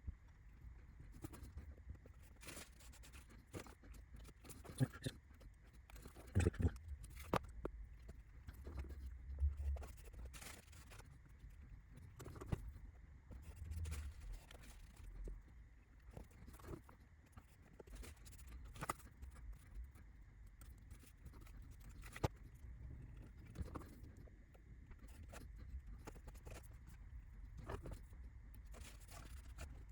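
Faint, irregular taps, clicks and light scrapes of small laser-cut roof tiles being handled and laid on a model building kit, over a low hum.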